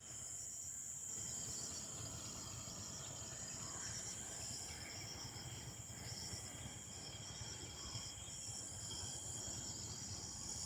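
Steady high-pitched insect chorus, crickets or cicadas, with a faster pulsing trill just below it, over a low outdoor rumble.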